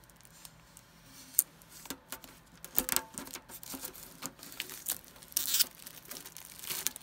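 Fingernails picking and scratching at the plastic shrink-wrap on a metal trading-card tin: scattered clicks, taps and short crinkles, with a sharp click about a second and a half in.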